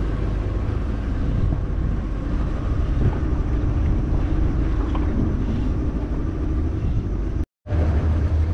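Small fishing boat's motor running steadily while under way, with water and wind noise over it. The sound drops out for a moment near the end, then comes back as a steadier low hum.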